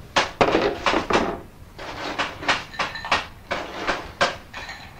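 A quick run of knocks and clatters of hard objects handled on a table, several a second, with a short ringing clink about three seconds in.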